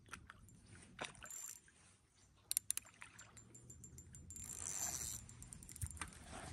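Faint clicks and rattles of a fishing rod and reel being handled while a hooked trout is played, with a short hissing rush about four and a half seconds in.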